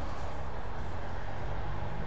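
Steady low rumble of wind buffeting the microphone, with a radio-controlled trainer plane's motor faint and distant behind it as the plane flies away.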